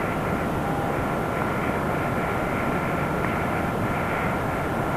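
Steady, even rumbling noise with a faint high tone running through it, unchanging throughout.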